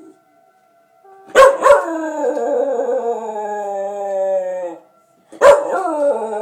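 Miniature schnauzer howling in response to a tornado siren: two long howls, starting about one second and five seconds in, each opening with a sharp yelp and sliding slightly down in pitch.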